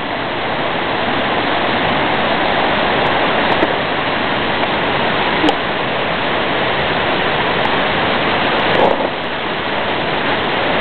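Steady rushing of running water, loud and unbroken, with a few short clicks standing out above it.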